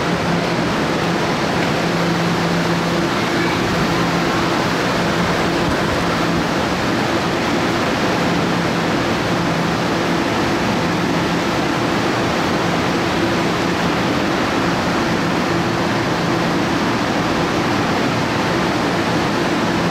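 Steady rushing noise and low electrical hum of electric multiple-unit trains standing at an underground platform, their air-conditioning and auxiliary equipment running.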